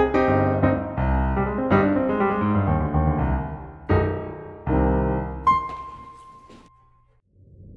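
Background music: piano chords struck in a steady pattern and left to ring. Near the end a single high note is held while the music fades away almost to silence.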